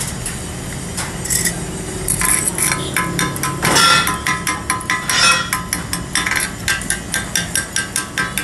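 Chipping hammer knocking welding slag off a fresh weld bead on a cracked steel truck axle. The ringing metal taps start about two seconds in and settle into quick, even strikes, several a second.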